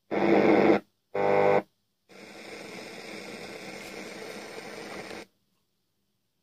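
Blaupunkt San Remo CD32 car radio's speaker output as the tuner changes: two brief snatches of broadcast audio, each cut off abruptly by muting, then about three seconds of steady FM static hiss between stations, ending in muted silence near the end.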